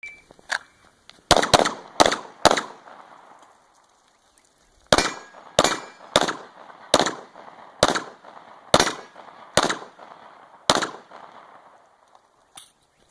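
Pistol shots in an action pistol stage: a short beep at the start, four quick shots, a pause of about two and a half seconds, then eight more shots at a steadier, slightly slower pace.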